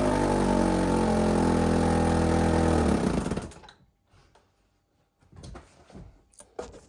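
1960 Johnson JW16 3 hp two-stroke outboard motor running steadily, then stopping about three seconds in and winding down to quiet. A few faint knocks follow near the end.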